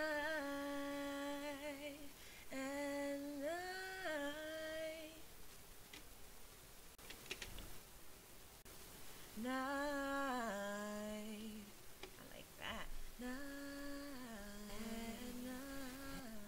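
A woman singing a cappella: wordless held notes with vibrato and small steps in pitch, in four phrases. In a pause of about four seconds in the middle there are a few faint clicks.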